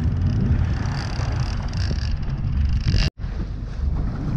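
Boat engine running steadily, with wind buffeting the microphone; the sound drops out for an instant about three seconds in.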